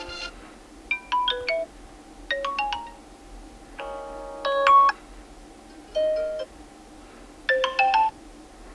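Vivo Y36 smartphone playing a pre-installed ringtone: short phrases of clear electronic chime-like notes, about six brief melodic bursts with short pauses between them.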